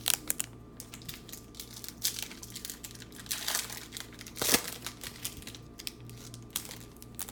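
Trading-card pack wrapper crinkling and tearing as a new pack is opened by hand: a run of irregular sharp crackles, the loudest about four and a half seconds in.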